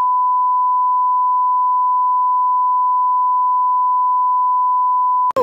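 Colour-bar test-pattern tone: one pure, steady, unbroken beep at a single pitch, cut off sharply near the end.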